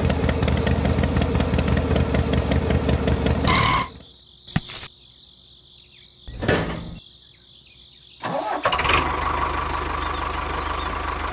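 Small diesel engine running with a fast, steady chugging that cuts off suddenly about four seconds in. A click and a short noise follow in the quieter gap, then an engine runs steadily again from about eight seconds in, with a steady whine over it.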